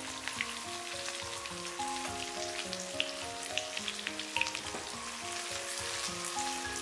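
Egg-coated tofu slices sizzling in shallow oil in a wok over low heat: a steady crackle of small pops. A soft background tune of held notes plays beneath it.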